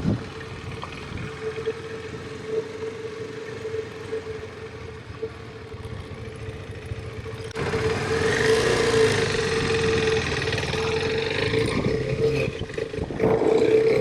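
KTM 390 Adventure's single-cylinder engine running at a steady cruise while riding, with a steady whine over it. About halfway through it gets louder, with more rushing wind and road noise.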